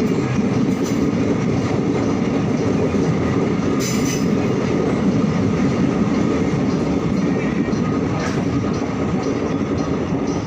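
Train running steadily: a continuous loud rumble with a few short sharp clanks, the clearest about four seconds in.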